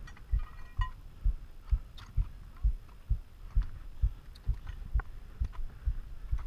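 Regular dull low thumps, about two a second, with a few light clicks, from the movement and handling of a body-worn action camera.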